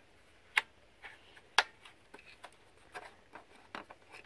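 A string of sharp clicks and lighter ticks, two louder ones about half a second and a second and a half in: the flip-up fuel and bar-oil filler caps of a Husqvarna 450 Rancher chainsaw being handled.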